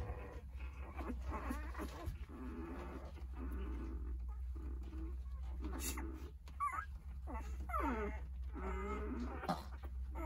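Eight-day-old Jindo puppies crying for their absent mother: repeated short, high cries that bend up and down in pitch.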